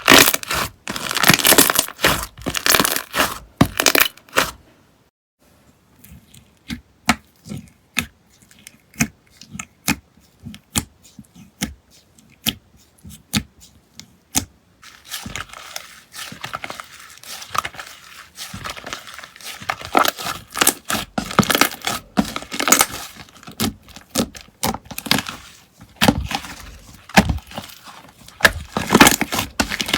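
Slime being pressed and squeezed by hand, giving crackling clicks and pops. The crackling is dense at first, stops briefly about five seconds in, comes back as scattered single pops, then turns dense again about halfway through.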